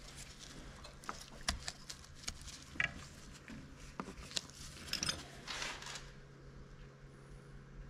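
Light clicks and taps of small oil cooler parts and seals being handled and taken off, scattered from about a second in until about six seconds in, over a steady low hum.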